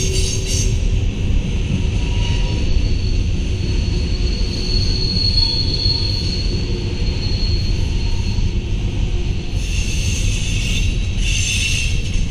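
CN mixed freight train's cars rolling past: a steady low rumble of wheels on rail, with a thin, high wheel squeal held for several seconds in the middle.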